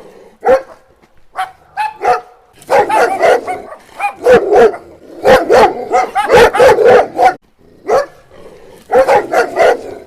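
A dog barking over and over in quick runs of short barks, with a pause of about a second and a half near the end.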